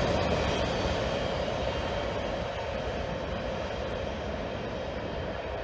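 Tail end of a mixed freight train rolling away on welded rail: the steady rumble of its wheels fades as the last cars recede.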